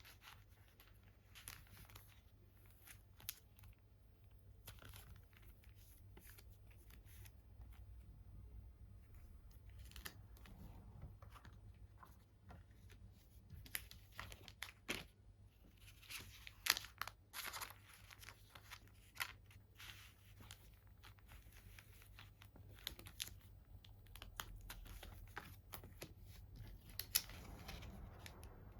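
Faint crinkling and tearing of plastic packaging and paper being handled, with scattered sharp clicks and rustles at an irregular pace.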